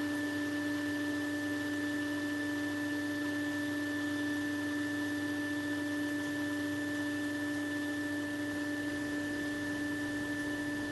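Hot air rework station blowing, a steady motor whine with several fixed pitches over an even hiss of air, as it heats the PMU chip's solder to lift it off the MacBook logic board.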